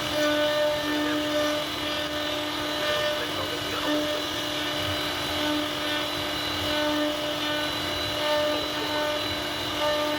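CNC router spindle running at a steady high whine while its bit cuts into wood, with a constant cutting hiss.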